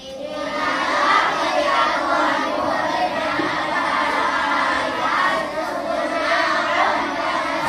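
A class of primary-school children reading a text aloud together in a sing-song chorus, their voices overlapping.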